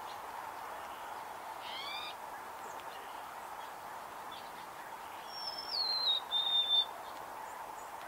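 A songbird's clear whistled phrase about five seconds in: a high note sliding downward, then a steady lower note held for about a second. A brief call note comes earlier, about two seconds in, over a steady background hiss.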